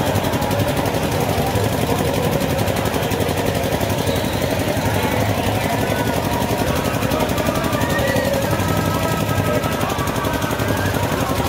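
Running machinery with a fast, steady rattle that does not let up, with faint voices underneath.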